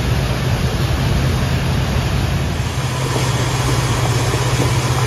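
Tour boat underway at speed: a steady low engine drone under a loud, continuous rush of water spraying off the hull.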